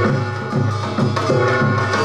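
Samulnori percussion: janggu hourglass drum and buk barrel drum beating a steady rhythm, each deep stroke sliding down in pitch, with a gong ringing above the drums.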